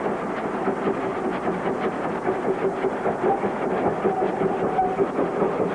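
Small steam locomotive working a short train across a steel trestle bridge: a steady rumble and rush of noise with faint high tones coming and going.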